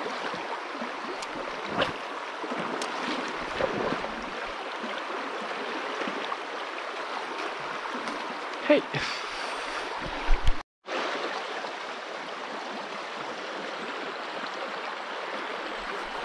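Shallow river running over stones in a riffle, a steady rush of water, with a few brief knocks. The sound drops out for a moment about ten and a half seconds in.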